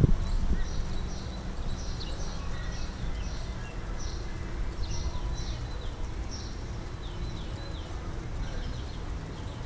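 Small birds chirping over and over in short, quickly falling high notes, several a second, above a steady low rumble of outdoor background noise.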